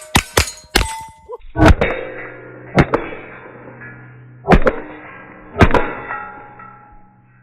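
A string of rimfire rifle shots at steel targets, each hit leaving the plate ringing. Several shots come in quick succession in the first second, then four more about a second apart.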